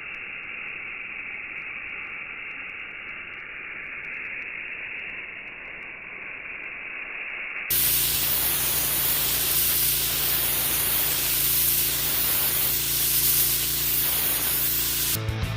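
Stihl RB800 pressure washer spraying: a steady, muffled hiss. About halfway through it turns abruptly louder and brighter, with its Kohler gas engine running steadily underneath. Music starts just before the end.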